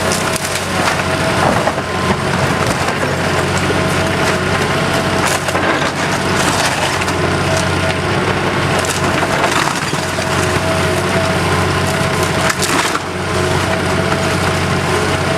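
Wooden house timbers cracking and splintering under demolition, with many scattered snaps and crunches over the steady drone of an engine.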